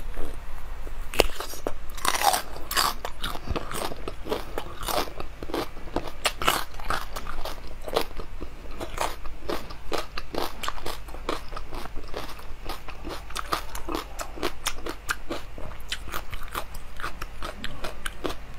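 Close-miked bites and chewing of a watermelon-slice-shaped dessert with dark pearl 'seeds', heard as a dense run of crisp crackling clicks, several a second, with a few louder bites.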